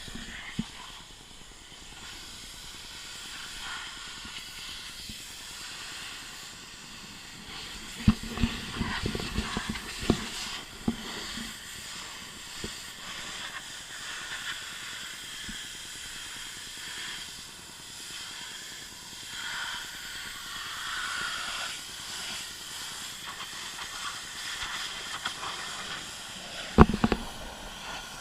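Pressure washer spray hissing steadily as the jet hits the car, with a few thumps about eight seconds in and again near the end.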